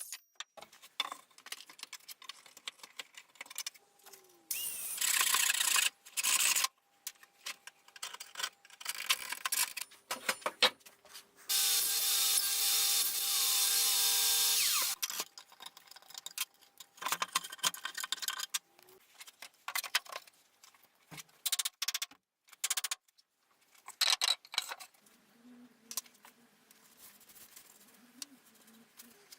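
Woodworking with power tools on chunky treated timber, in short choppy stretches: a power tool runs in bursts, the longest about three seconds near the middle, between knocks, taps and scraping of wood.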